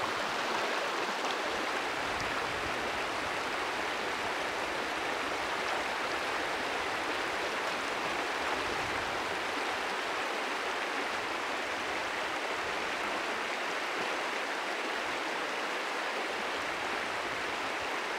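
Shallow, rocky river running over stones: a steady, even rush of water.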